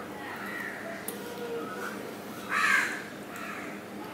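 A crow cawing, with one loud harsh caw about two and a half seconds in and fainter calls before it.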